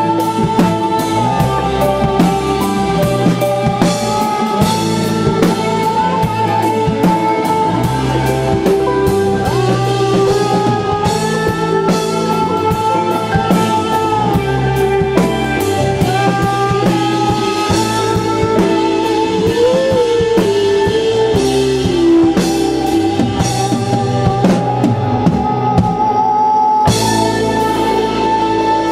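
A rock band plays an instrumental passage on drum kit, electric bass and electric guitar. The drums keep a steady beat under held, gliding guitar lines and moving bass notes, and they briefly drop out near the end.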